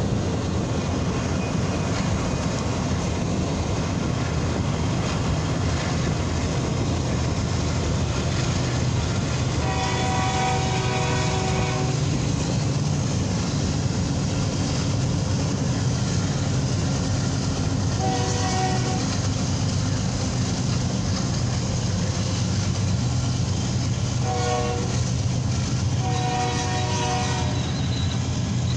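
BNSF diesel locomotive horn sounding four blasts, a chord of several notes: one long blast about a third of the way in, a shorter one past the middle, then a short one and a long one close together near the end, the signal for a grade crossing. Under it runs the steady rumble of the passing intermodal train.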